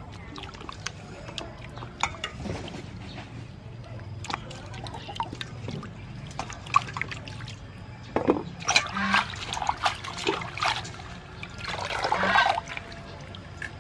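Vegetables being washed by hand in a stainless-steel bowl of water: lettuce leaves, chilies and limes swished and rubbed, with small splashes and drips, louder sloshing in the second half as the lettuce is worked and lifted out dripping.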